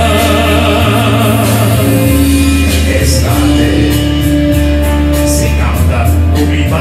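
A man singing a slow ballad over a recorded backing track, holding notes with vibrato above a steady bass line.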